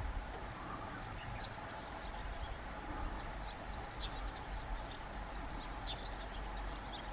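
Outdoor ambience: small birds chirping in short, scattered high notes over a steady low rumble.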